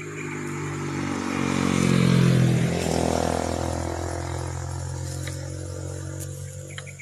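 A motorcycle passing close by: its engine note builds to its loudest about two seconds in, drops in pitch as it goes past, and fades away.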